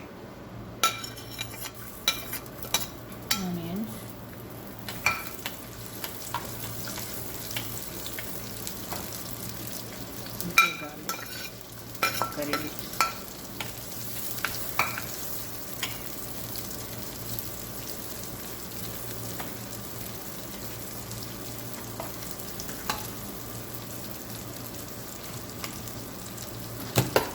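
Tempering sizzling in hot sesame oil in a kadai: a steady frying hiss, with scattered sharp clicks and taps as it is stirred, most of them in the first few seconds and again about ten to fifteen seconds in.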